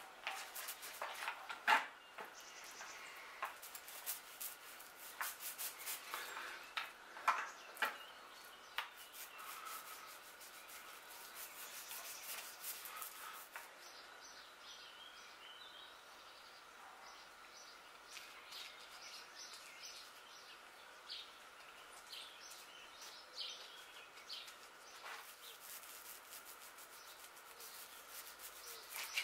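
Quick scraping and rubbing strokes of hand work on a wooden keel timber as epoxy is mixed and spread with a spreader. The strokes come thick through the first half and again near the end, with small birds chirping in the quieter stretch between.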